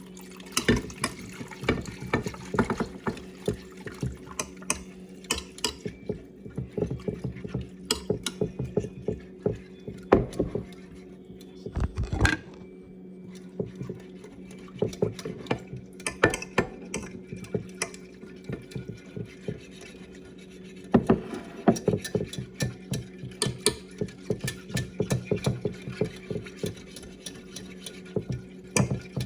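A utensil stirring dough in a bowl, knocking and scraping against the sides several times a second in stretches with short pauses, over a steady low hum.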